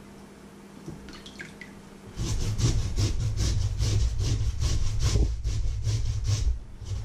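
Peeled potato rubbed on a flat metal hand grater over a stainless steel bowl. After a quiet first two seconds, fast, rhythmic rasping strokes, about four to five a second, with a brief pause near the end.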